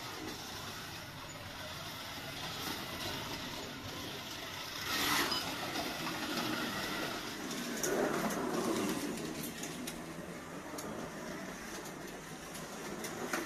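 Carrera Digital 132 slot car lapping the plastic track, a steady running noise that swells as the car passes close, about five seconds in and again about eight seconds in.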